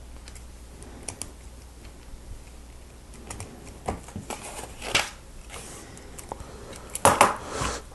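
Small plastic Lego Technic pieces clicking and rattling as they are handled and pressed together, in irregular light clicks, with a louder clatter near the end.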